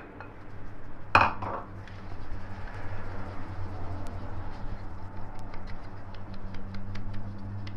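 Flour being sifted through a kitchen sieve: one louder knock about a second in, then a continuous rustling shake with many light taps of the sieve.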